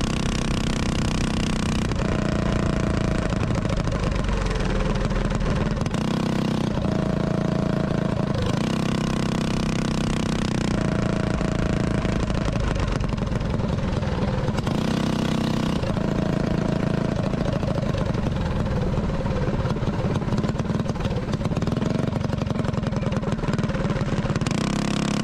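Mini bike's small engine running as the bike is ridden, its pitch rising and falling with the throttle.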